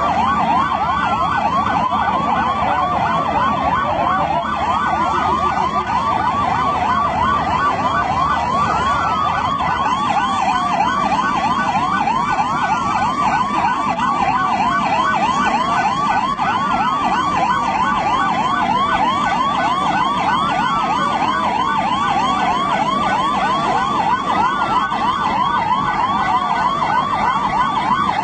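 Emergency vehicle sirens sounding together: one fast yelp sweeping up and down about four times a second, and a slower wail that rises and falls roughly every four seconds. A low rumble underneath drops away about ten seconds in.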